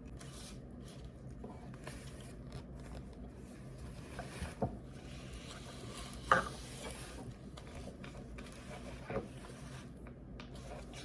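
Light scraping and handling sounds of small objects, with three brief soft knocks, over a steady low room background.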